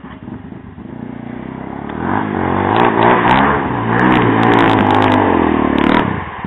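ATV engine revving, its pitch rising and falling, louder from about two seconds in.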